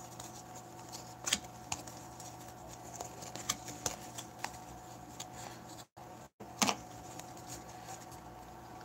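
A stack of hockey trading cards being sorted by hand, the cards sliding against each other with a sharp flick or snap every second or so, over a faint steady hum. The sound cuts out twice very briefly about six seconds in.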